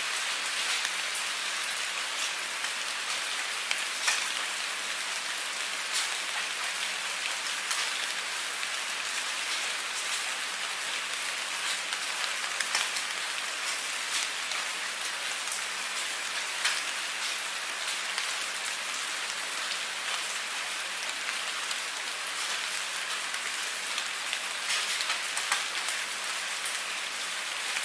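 Steady rain falling on a surface: an even hiss with scattered sharp ticks of individual drops.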